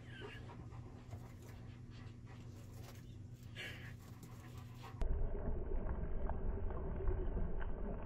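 Short breathy hissing puffs from a bearded dragon over a steady low room hum, two of them clearer: one right at the start and one a little after three seconds. About five seconds in the sound cuts abruptly to a louder, muffled low underwater rumble.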